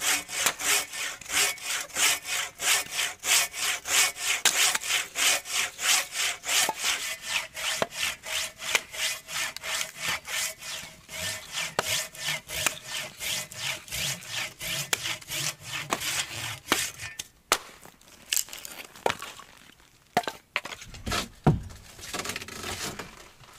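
A log of firewood being sawn through by hand, a steady back-and-forth of about two to three saw strokes a second. The sawing stops about 17 seconds in, followed by a few scattered knocks.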